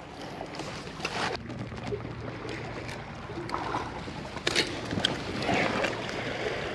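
Close handling noise from holding up a freshly landed flounder in a fish lip grip: rustling over a steady hiss, with sharp clicks about a second in and twice more around four and a half to five seconds.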